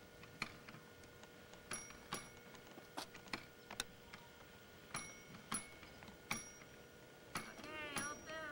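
Plastic toy gas pump being worked by a child: a dozen or so sharp clicks, each with a brief high ring, at uneven intervals. A young child's voice squeals briefly near the end.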